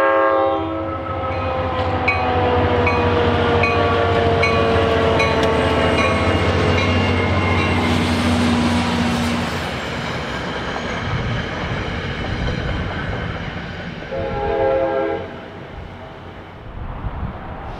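NJ Transit GP40PH-2B diesel locomotive and Comet V coaches passing at speed: a short horn chord at the start, then the diesel's drone with a whine that slides down in pitch as it goes by, and a regular clicking of wheels over rail joints. The rumble eases as the last cars pass, and another short horn blast sounds about 14 seconds in.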